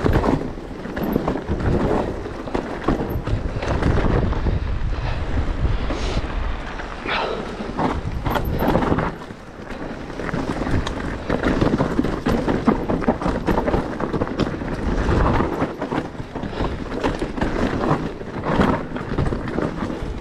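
Specialized Turbo Levo electric mountain bike ridden hard down a trail: tyres rolling over rough ground with a constant rattle and many sharp knocks from the bike, and wind buffeting the microphone in low gusts.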